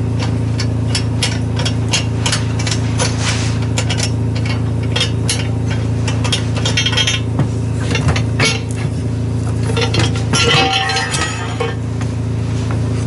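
Repeated clicks, taps and clinks from hands and tools working on the Silver-Line SL8 sander's belt cover as it is taken off, over a steady low hum.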